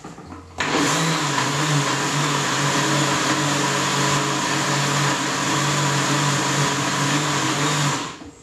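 Countertop electric blender running steadily, blending a smoothie. It switches on about half a second in and cuts off near the end.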